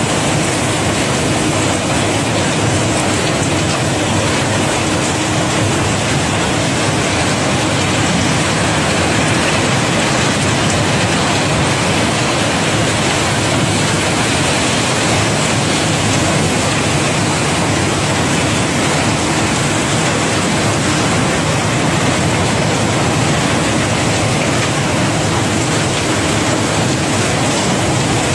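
A steady stream of cobblestones pouring and rattling against each other during unloading from a barge, a dense continuous clatter of many small rock impacts that never lets up.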